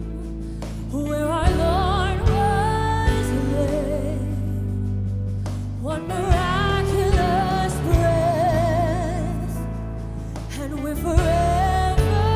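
Worship music: a voice sings long phrases with vibrato over a steady sustained accompaniment, with new phrases starting about a second in, about halfway through and near the end.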